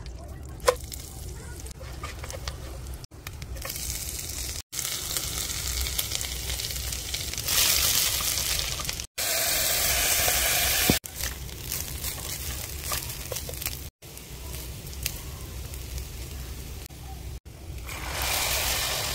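Oil sizzling in a cooking pot, with dry rice grains poured into the pot around the middle, and water poured over the rice near the end. The sound breaks off sharply several times.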